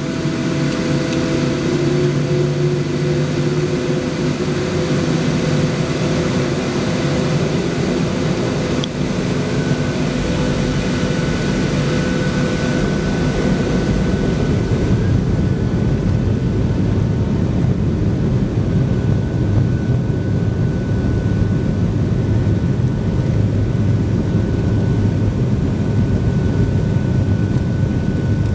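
Boeing 737-800's CFM56 jet engines running at taxi power, heard inside the cabin over the wing as a steady rumble. About ten seconds in, several steady hums fade out and a deeper rumble takes over, with a thin, high steady whine.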